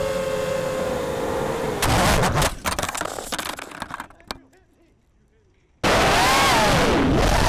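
Racing drone motors whining at a steady pitch, then a crash about two seconds in: a burst of hard clattering impacts that dies away to near silence as the drone lies still. About six seconds in the motors start up suddenly again, whining with a pitch that rises and falls with the throttle.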